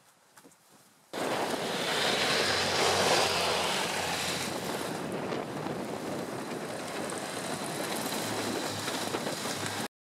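Starting abruptly about a second in, a small two-seat rubber-tracked vehicle runs as it drives over snow: a steady rushing noise with a faint low motor hum, much of it wind on the microphone. It cuts off suddenly just before the end.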